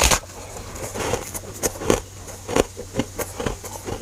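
A person biting into freezer frost and chewing it: one loud bite right at the start, then a run of short, irregular crunches.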